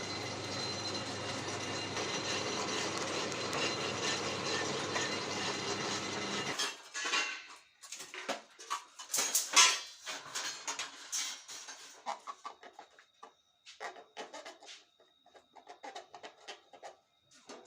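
Band saw mill engine running steadily, then cutting off abruptly about six and a half seconds in. Irregular short knocks and rustles follow.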